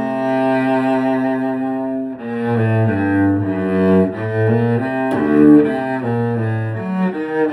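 A cello made by Gianluca Poli in 2021, played with the bow in a sound test: a melodic line of held notes that moves from pitch to pitch every half second to a second.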